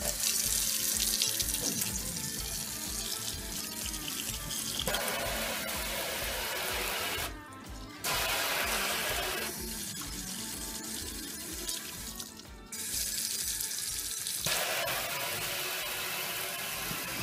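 Water from a Kohler Simplice pull-down kitchen faucet running into a stainless steel sink. The rush of the flow changes abruptly several times as the spray head is switched between a solid stream and spray, and it drops away briefly twice. Background music with a steady beat plays underneath.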